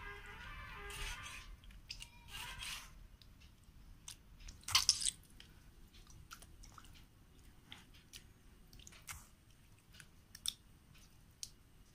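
Knife cutting raw chicken liver and gizzard on a stone slab: scattered wet chops and squishes of the blade through soft meat onto stone, the loudest a quick run of cuts about five seconds in.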